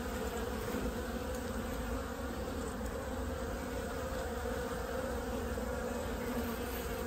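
Honeybees of a strong, vigorous colony buzzing steadily over an open hive.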